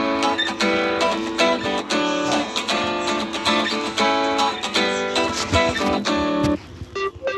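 Strummed acoustic guitar music, chords struck again and again in a steady rhythm. It stops suddenly less than a second before the end.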